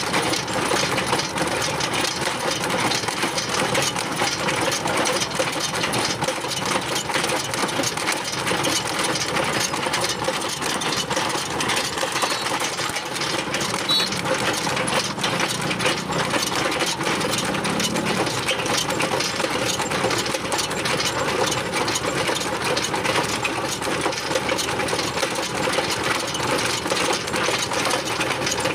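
Hydraulic earth auger on a crane boom drilling into dry soil, with the machine's engine running: a loud, steady, fast mechanical rattle that holds without a break.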